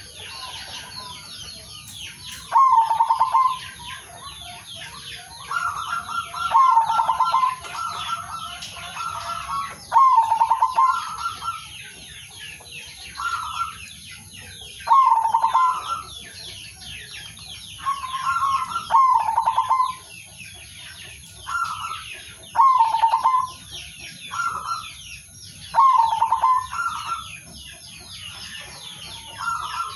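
Male zebra dove cooing its rolling, staccato call over and over, a phrase about every two to three seconds, with shorter higher notes in between. Other birds chirp constantly in the background.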